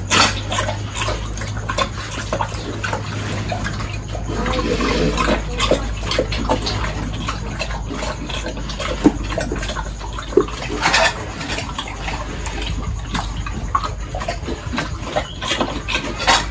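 Irregular splashing and slurping of water and wet feed at a pig trough, over a steady low hum.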